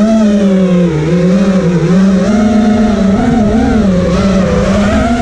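T-Motor F80 brushless motors of an FPV quadcopter in flight: a loud whine whose pitch rises and falls as the throttle changes.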